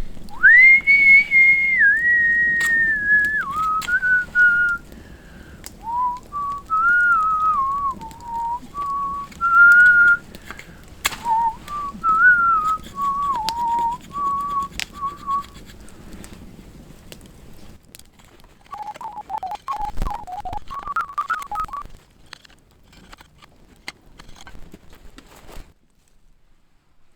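A man whistling a wandering tune, with scattered sharp clicks and taps. The whistling breaks off a little past halfway, returns briefly lower down, then gives way to a few quieter taps.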